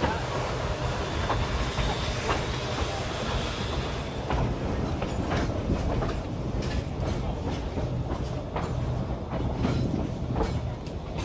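Narrow-gauge steam train heard from an open passenger car while it runs: a steady rumble of the cars with irregular sharp clicks of the wheels on the track.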